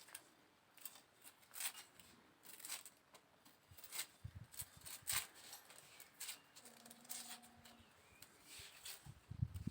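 Faint, irregular clicks and snips of onions being cut by hand, with a short low hum about seven seconds in and a few soft thumps near the end.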